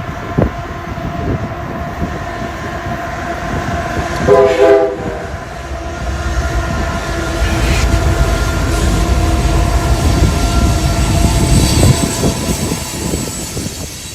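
Train going by with a rumble that builds toward the end, its horn sounding once for under a second about four seconds in.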